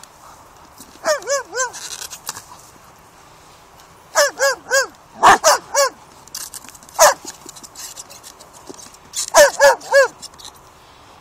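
German shepherd barking in quick bursts of three or four short, high barks, three times over, with a few sharp knocks between them.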